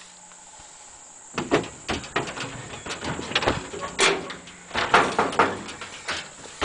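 Tools and gear being rummaged through and handled: a run of irregular knocks and clicks, with a louder knock about four seconds in.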